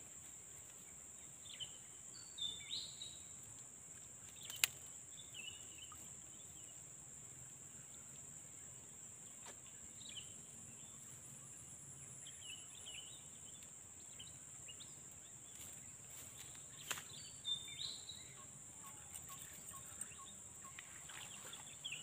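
Swamp ambience: a steady high insect drone, with short bird chirps now and then. Two sharp clicks stand out, one about four and a half seconds in and one about seventeen seconds in.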